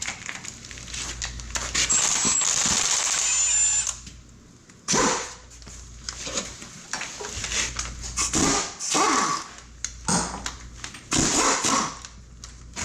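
A power tool, such as a cordless ratchet or drill used on engine bolts, runs continuously for about four seconds with a thin high whine near the end. Then come several short separate bursts of sound.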